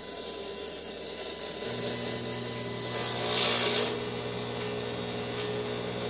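Over-the-range microwave oven switching on about two seconds in and running with a steady low hum. A brief hiss comes about halfway through.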